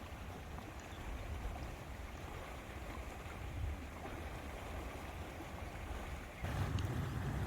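Lakeside ambience: wind rumbling on the microphone over the wash of lake water. About six and a half seconds in, the low rumble turns abruptly louder.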